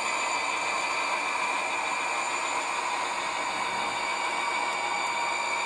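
Model freight train running on the layout track: a steady whir of the cars rolling along the rails, with no change in pace.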